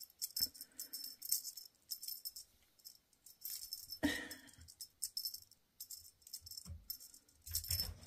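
Cat teaser wand toy rattling in quick, irregular shakes as it is waved above kittens, with a few soft thumps near the end.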